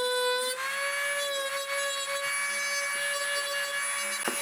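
Dremel rotary tool running at high speed, grinding the metal wings off a gas airsoft magazine's bottom piece: a steady high whine over a grinding hiss, its pitch dipping briefly near the start as the bit bears down. One sharp click near the end.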